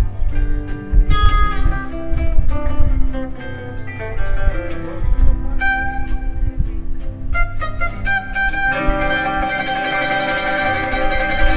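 Live country band music: an instrumental passage led by guitar, with sustained chords and a steady beat of sharp ticks.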